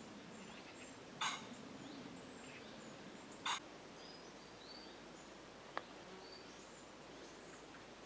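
Quiet woodland ambience with small birds chirping faintly, and two short, harsh calls from a larger bird about two seconds apart. A single sharp click comes about two-thirds of the way through.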